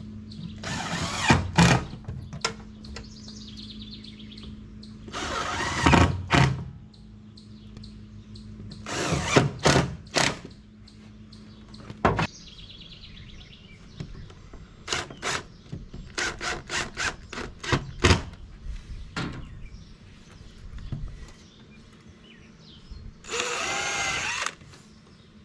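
Cordless DeWalt drill driver running in short bursts of about a second each, driving screws to fasten panels. Between the bursts there is a quick series of sharp clicks.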